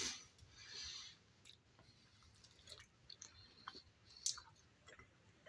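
Faint, quiet chewing of a chicken nugget, with scattered soft mouth clicks.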